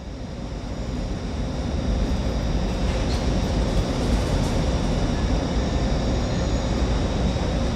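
ÖBB Taurus electric locomotive heading a Railjet train: a steady low rumble with a constant high-pitched whine from its electrical equipment, growing louder over the first two seconds and then holding steady.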